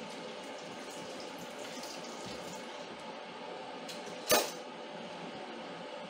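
Washing-up at a stainless steel kitchen sink: water running and splashing in the basin, with one sharp metallic knock about four seconds in.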